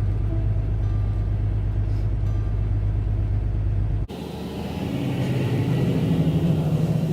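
Steady low engine rumble. About four seconds in, it cuts abruptly to a different vehicle sound that swells and then eases off.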